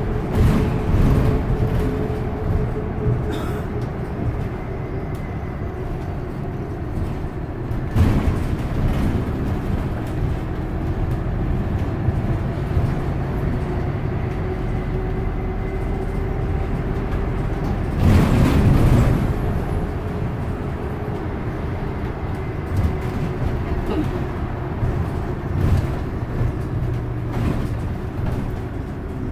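Inside a San Francisco Muni city bus under way: a steady low drivetrain and road rumble with a steady whine. Three short louder surges of rattle and noise come through, the biggest about two-thirds of the way through.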